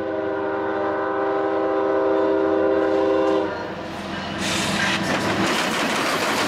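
Norfolk Southern diesel locomotive's multi-chime air horn sounding one long blast that stops about three and a half seconds in. About a second later the locomotive passes close by, its engine and wheels clattering over the diamond crossing.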